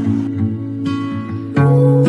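Background music: a strummed guitar, with a louder chord coming in about one and a half seconds in.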